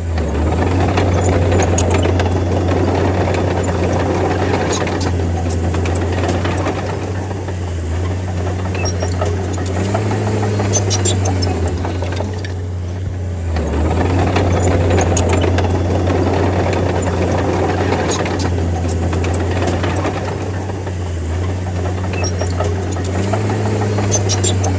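D30 bulldozer's diesel engine running steadily under work, its pitch rising briefly twice as it takes more throttle, with scattered clanks and rattles of the tracks and blade.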